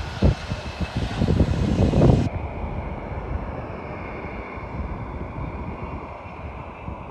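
Airliner engines running steadily, with gusts of wind buffeting the microphone in the first couple of seconds.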